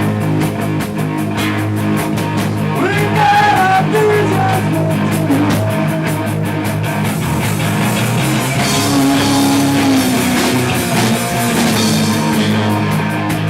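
Punk rock band playing live: electric guitar and drum kit driving a fast song, with a sung vocal coming in and out over it.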